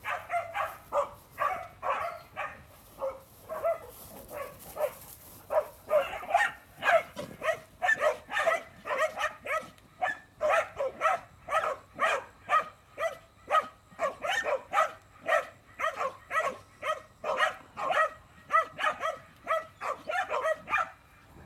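A dog barking over and over in a steady rhythm, about two barks a second, without a break.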